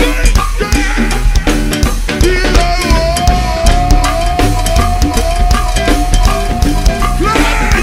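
Go-go band music: a drum kit with bass drum, snare and rimshots driving a steady groove, with one long held note over it through the middle.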